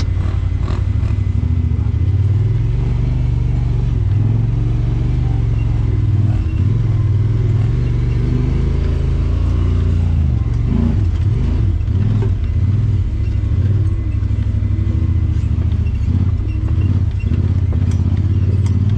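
Honda Pioneer 1000 side-by-side's parallel-twin engine, fitted with an aftermarket HMF exhaust, running under load up a rocky trail, heard from inside the cab. The engine note rises and falls with the throttle, with occasional knocks and rattles as the machine goes over rocks.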